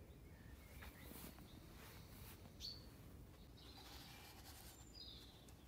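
Near silence with faint bird chirps: a short high call about two and a half seconds in and a couple more near the end.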